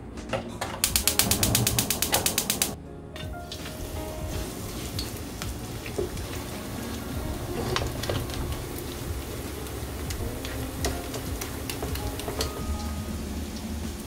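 A fast, even run of sharp clicks, about ten a second, for roughly two seconds, then scattered single clicks and clinks.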